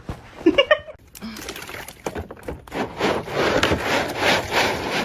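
Close, noisy scuffling and rustling that builds up over the last few seconds, after a brief voice-like sound near the start.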